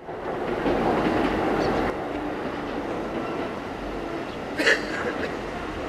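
Electric trains running on the tracks: a steady rumble of wheels on rail, loudest in the first two seconds, with one brief sharp sound about four and a half seconds in.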